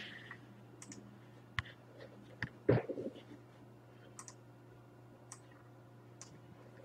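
A few light, scattered clicks and one louder knock about three seconds in, over a faint steady low hum: small handling noises.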